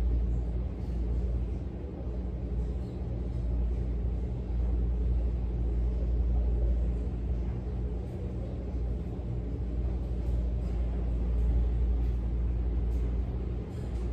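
Steady low rumble and hum, as from a machine running, with faint scattered rustles above it.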